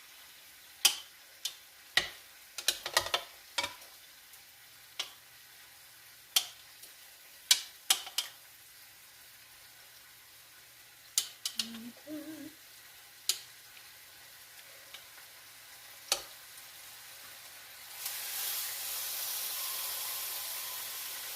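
Sharp clicks and clacks of kitchen utensils against a pan. About 18 s in, a loud sizzle starts as a seasoned chicken piece is laid skin side down in hot oil to sear.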